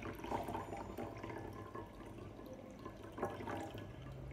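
Water pouring from a glass jug into a bowl, splashing continuously, with a couple of louder gushes.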